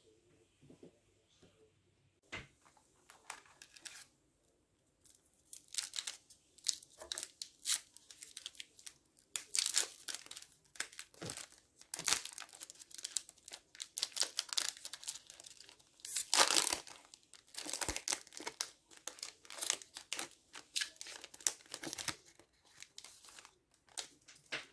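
A trading card pack's wrapper being torn open and crinkled by hand: a long run of short tearing and crinkling rustles that start about two seconds in.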